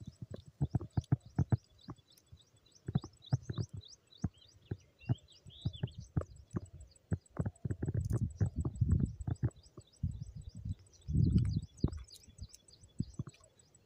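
Birds chirping in a long series of quick rising notes, several a second, over irregular low thumps and rumbles of wind buffeting the microphone, heaviest in two gusts in the second half.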